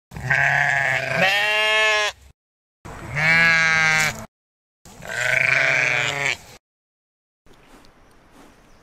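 Sheep bleating: three long calls with short silent gaps between them.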